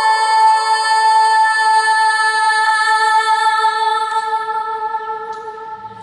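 A woman singing unaccompanied holds one long, high final note at a steady pitch, fading away over the last couple of seconds. The hard stone church adds a long, resonant echo to the voice.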